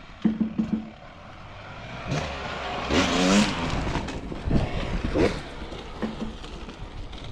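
Dirt bike engines revving in short bursts, the pitch rising and falling several times, with the loudest rev about three seconds in.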